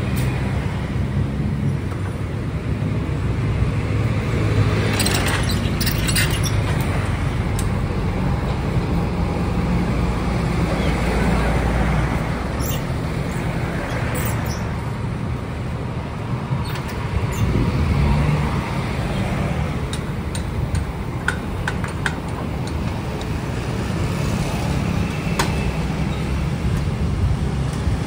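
Steady low rumble of engines and road traffic, with a few scattered sharp clicks and knocks.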